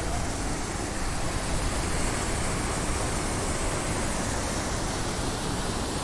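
Steady, even rush of a waterfall's falling water.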